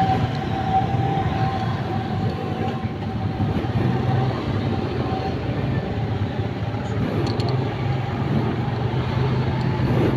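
Motor scooter engine running low and steady at idle amid street traffic noise, with a faint steady high tone that fades out about halfway.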